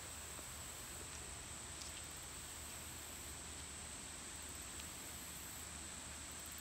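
Faint outdoor ambience: a steady high-pitched insect drone over a low, steady hum.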